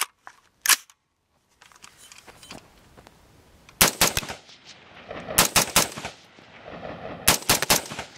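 AR-15 rifle built on a Model 1 Sales carbine kit with a 16-inch fluted barrel, fired rapidly in three quick strings of three or four shots each, about a second and a half apart, each string trailing off in an echo. The shots are a function test of the new build, the rifle cycling round after round.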